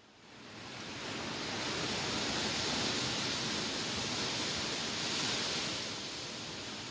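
A gust of wind through tall grass: a rushing rustle that swells over the first two seconds, holds, and eases slightly near the end.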